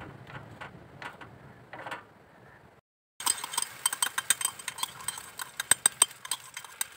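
Cooking at a gas stove: light metal clinks over a low hum, then, after a short break, dense irregular clicking and crackling as beaten egg is poured from a steel tumbler into a hot pan for an omelette.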